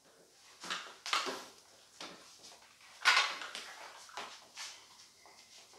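PowerBlock adjustable dumbbells and a weight bench being handled as a lifter lies back with the weights to start a set of presses: a series of short knocks and rustles, the loudest about three seconds in.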